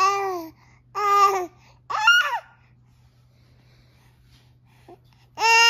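A baby's high-pitched squealing coos, three short ones close together and a longer one near the end, each falling in pitch. This is the contented 'dolphin' squeal a baby makes when satisfied.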